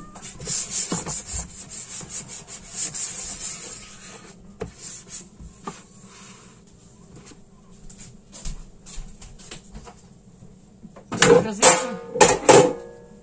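Plastic kitchen containers handled on a countertop: rubbing and scraping with scattered clicks. Near the end comes the loudest part, a short run of squeaky scrapes as a large plastic bucket is set down on a steel tray.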